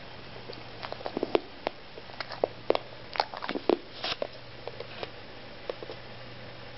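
Boxer dog grinding his teeth: short, sharp clicks in irregular clusters, busiest in the middle few seconds. The grinding was a sign of dental problems caused by conformational issues, which needed four extractions and removal of a cyst.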